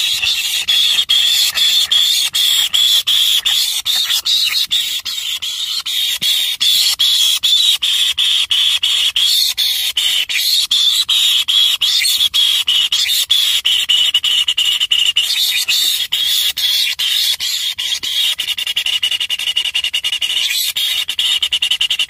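White-throated kingfisher nestlings begging for food: a continuous, high-pitched squealing chorus made of rapidly repeated notes.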